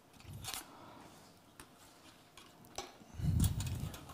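Faint clinks of metal kitchen utensils and dishes being handled while plating, with a dull low thump about three seconds in.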